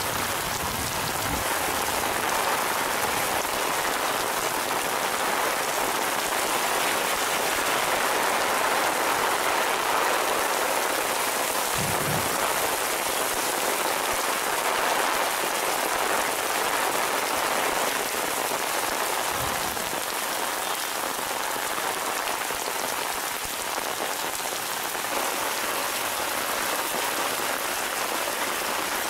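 Heavy rain pouring onto a paved road, a dense, steady hiss with no let-up. There are a couple of brief low thumps, near the middle and about two-thirds of the way in.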